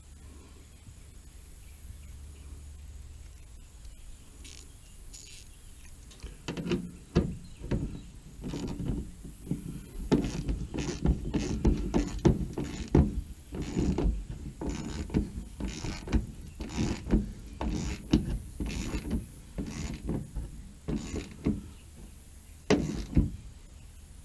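Irregular knocks, taps and light clatter from hand work on a mud flap's fasteners, as screws and nuts are fitted and finger-tightened. The handling starts about six seconds in and goes on in quick, uneven strokes.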